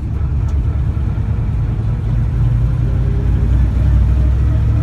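Car engine pulling under acceleration as the car is driven, a low rumble that grows louder over the first few seconds.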